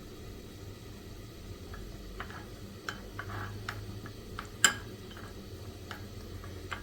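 A spoon clinking and tapping in a small cup holding honey and crushed black pepper, about a dozen light, irregular clicks with one sharper clink about two-thirds of the way through.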